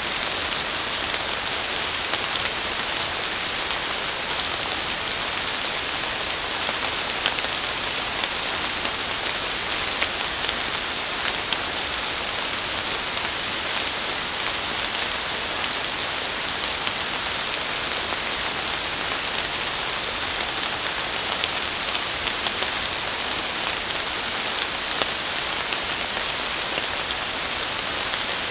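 Steady rain falling on forest foliage: an even hiss with many separate drops ticking on the leaves.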